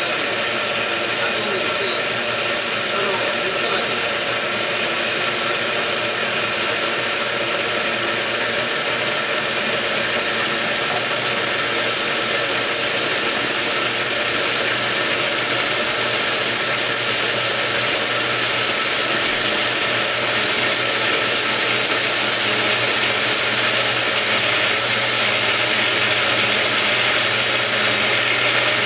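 Blender motor running steadily, emulsifying soy milk and sunflower oil into vegan mayonnaise, with a slight change in tone in the last few seconds.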